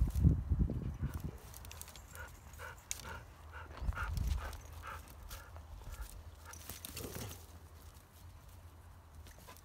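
Young Kangal dogs wrestling and scuffling on grass. Low thumps come near the start and again about four seconds in, with a run of short, evenly spaced dog sounds in between.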